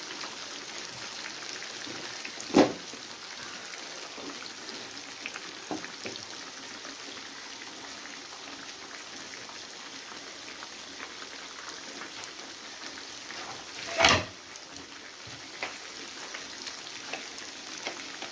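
Chicken pieces shallow-frying in hot oil in a pan: a steady sizzle with small crackles throughout. Two sharper, louder cracks stand out, about two and a half seconds in and again near fourteen seconds.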